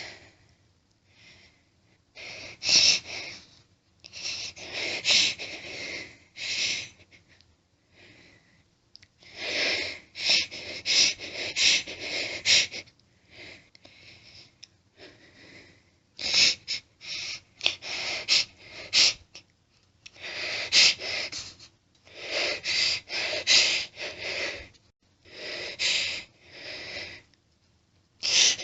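A woman fighting off a sneeze fit: clusters of quick hitching in-breaths, sniffs and gasps as each sneeze builds up and is held back. There are about seven bouts a few seconds apart, with short quiet gaps between them.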